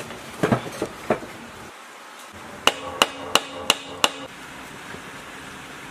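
Hammer striking the rusty metal body of an old miter saw: five sharp ringing blows, about three a second. A few duller clunks come in the first second, as the heavy saw is set down.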